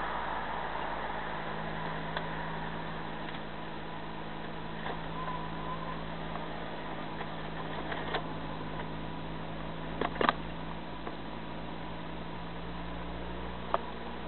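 Steady cabin drone of a car's engine and road noise while cruising, heard from inside the car. There are a few short sharp knocks, two close together about ten seconds in and one near the end.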